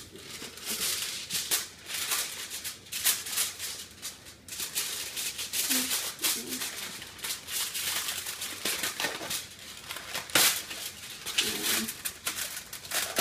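Kitchen scissors snipping and plastic packaging crinkling and rustling, with many sharp clicks throughout.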